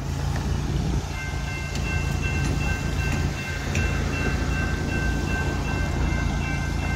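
Railroad crossing warning bell starting to ring about a second in as the crossing signals activate, over a steady low rumble.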